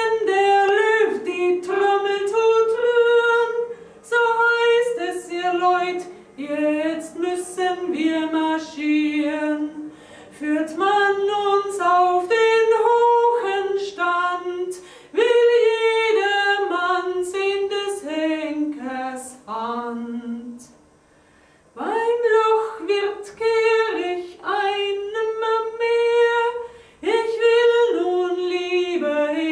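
A woman singing solo, phrase after phrase, with a short pause for breath about two-thirds of the way through.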